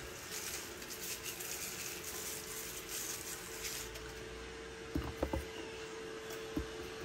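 A few light knocks as imitation crab sticks drop into the plastic bowl of a small electric food chopper, which is not yet running, over a faint steady hum and hiss.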